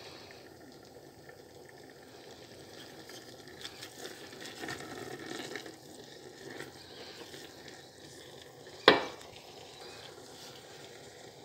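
Wooden spoon stirring savoy cabbage and pork ribs as they stew in a pot, a soft scraping and churning over the cooking noise. One sharp knock comes about nine seconds in.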